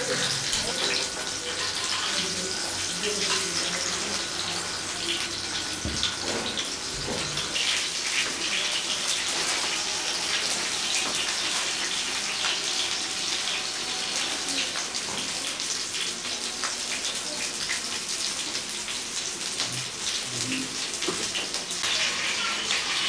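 Marinated fish pieces sizzling and crackling steadily as they shallow-fry in hot mustard oil on a tawa griddle. A couple of soft knocks come about six and seven seconds in.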